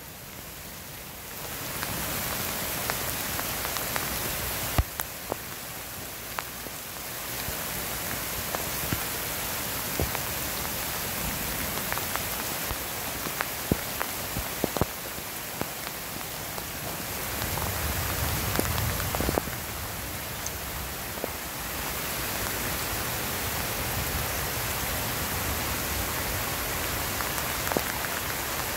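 Steady rain falling on garden foliage and ground, an even hiss with many scattered sharp ticks of individual drops landing close by.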